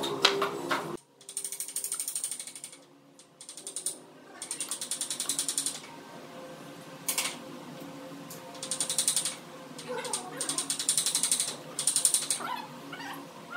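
Rapid mechanical clicking, like a ratchet, in five bursts of about a second each, with one sharp single click between them. A louder sound in the first second cuts off abruptly.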